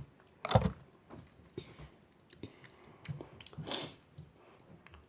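Close mouth noises of someone eating sauce: wet chewing and smacking, with a louder burst about half a second in and a longer noisy one near four seconds.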